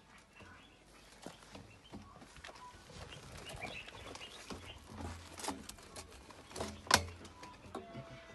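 Scattered knocks, clicks and scrapes of hands working PVC drain pipe and fittings among loose rubble in a trench, with one sharp knock about seven seconds in.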